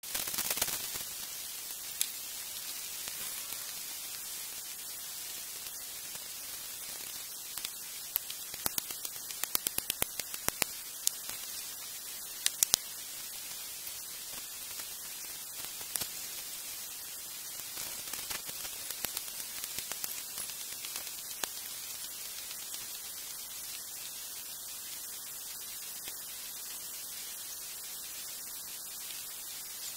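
Steady static-like hiss, with a run of sharp clicks about a third of the way in and a few scattered clicks later.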